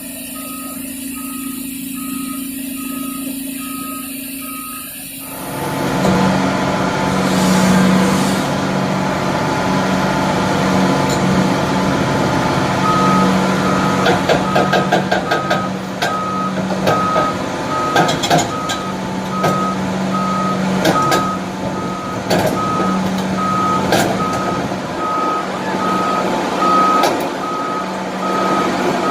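Heavy diesel engine of a CAT 6030 mining excavator running loud under load, with its travel alarm beeping steadily, about one beep a second. From about halfway on there are sharp metallic clanks and knocks.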